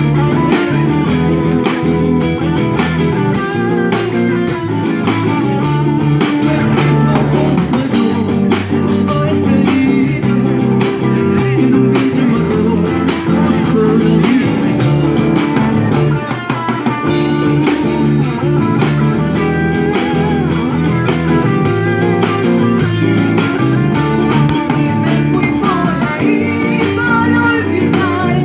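A chacarera played live by an amplified band: electric guitar, drum kit and violin, with a man singing into a microphone.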